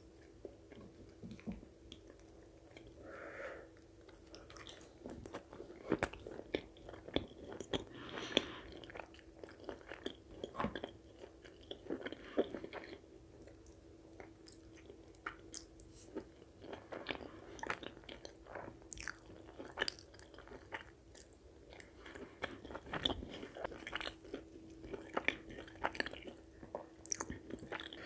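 A person chewing and biting chicken curry and puri close to the microphone, with many short, sharp, wet mouth clicks. A steady faint hum runs underneath.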